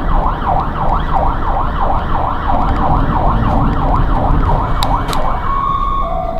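Ambulance siren sounding from the ambulance itself, a rapid rising-and-falling yelp of about three sweeps a second, which switches about five and a half seconds in to a two-tone hi-lo, alternating a higher and a lower note.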